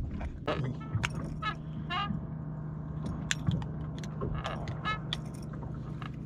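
Scattered metallic clicks and clinks from needle-nose pliers and fishing tackle being handled to unhook a pufferfish, over a steady low hum.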